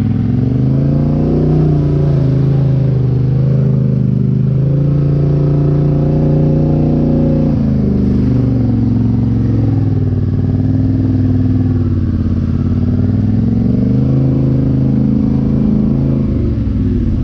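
Polaris Sportsman 850 HighLifter ATV's parallel-twin engine running loud through a Big Gun Evo U exhaust while riding. Its pitch rises as the throttle opens and falls off when it is eased, rising near the start, dropping about seven seconds in, and rising and falling a few more times.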